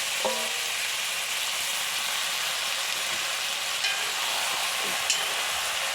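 Food sizzling steadily in hot oil in a pan as the curry is cooked, with a couple of light utensil clicks near the end.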